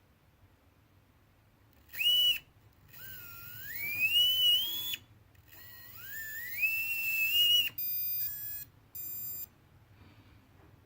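Electric motor driven by an electronic speed controller, which the owner calls bad: a short beep, then twice a whine that climbs in pitch as the motor speeds up and cuts off sharply, followed by two short buzzy beeps.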